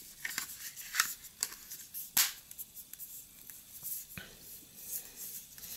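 Soft-touch plastic phone case being handled and fitted onto a Lenovo Vibe P1 smartphone: scattered light plastic clicks and scrapes, the sharpest about two seconds in and another just after four seconds.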